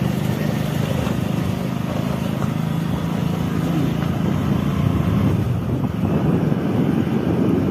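Motorcycle engine running steadily while the bike is ridden along a road, heard from on board, with road noise.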